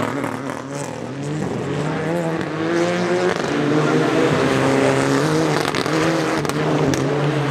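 Mitsubishi Lancer Evolution rally car's turbocharged four-cylinder engine revving hard as it drives past, the pitch rising and falling repeatedly. Two sharp cracks near the end.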